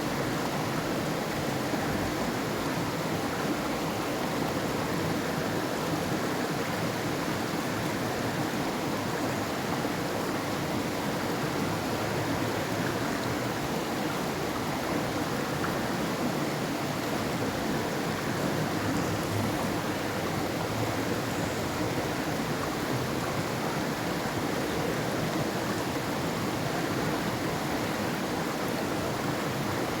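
River water flowing over rocks: a steady, unbroken rush of running water.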